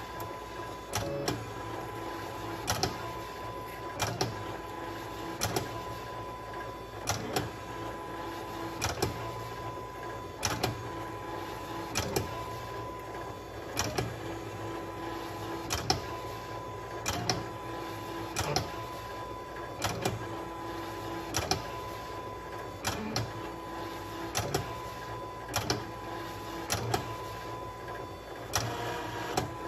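Silhouette Cameo cutting machine plotting with a Sharpie: its motors run with a steady whine that stops and starts, and there is a sharp click about every second and a half as it draws line after line.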